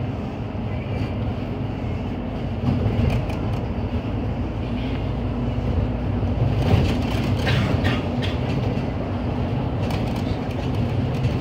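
Inside a MAN Lion's City Efficient Hybrid city bus driving along: a steady low drivetrain and road rumble, with a cluster of knocks and rattles from the bus around the middle.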